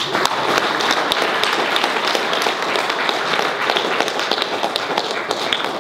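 Audience applauding: a dense run of many hand claps that dies away near the end.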